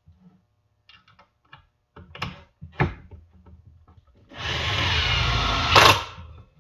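A few light wooden knocks as the frame pieces are handled, then a cordless drill runs for under two seconds, driving a screw into the wooden frame, and stops with a sharp crack as the screw seats.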